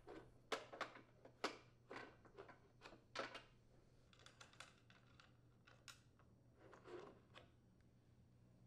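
Faint, scattered clicks and light knocks as the plastic rear wheels of a Craftsman walk-behind mower are slid off the axle and handled, the taps thinning out after about three and a half seconds.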